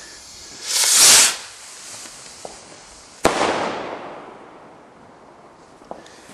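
A Ring Leader firework rocket launching with a loud hissing whoosh about a second in, then bursting into its ring of stars with one sharp bang a little after three seconds, the report echoing and dying away.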